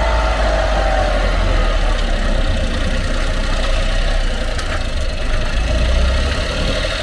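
Honda Acty kei truck running, a steady low drone with a tone that slides down in pitch over the first second or so and a single sharp click about two-thirds of the way through.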